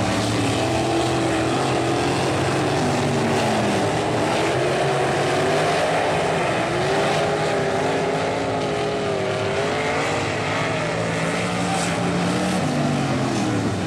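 Several sprint car V8 engines racing together, their pitches overlapping and rising and falling as the cars lap the track.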